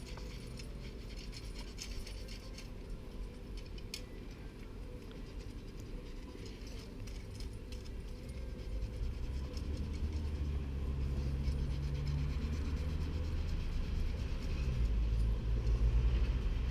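Low rumble of a motor vehicle engine, growing louder through the second half. Faint light scratching and one sharp tick come in the first few seconds.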